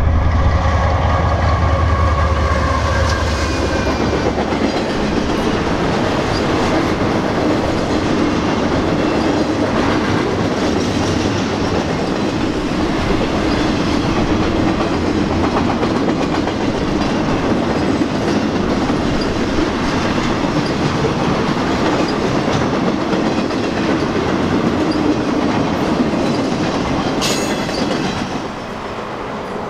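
A BNSF diesel locomotive passes close by, its engine loud for the first few seconds. A long string of flatcars carrying maintenance-of-way machines follows, their steel wheels rolling steadily on the rails, and the sound eases off near the end.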